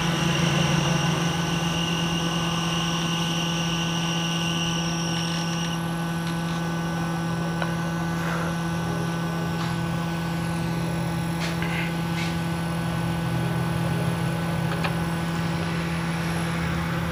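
Hot-air rework station blowing steadily, heating a phone's charging jack to solder it on at a 350 setting. It gives a steady hum, with a high whine that stops about six seconds in.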